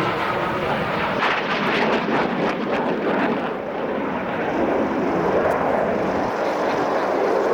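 Fixed-wing aircraft flying past, a steady engine rush that shifts lower in pitch about halfway through.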